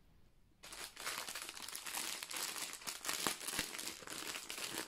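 Clear plastic packaging crinkling as a wrapped bundle of diamond-painting drill bags is handled and opened. It starts about half a second in and goes on as a continuous crackle.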